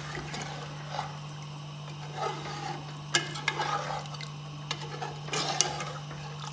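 Water being poured into a pot of fried mutton and potatoes, with a few short clinks of the pot and utensils.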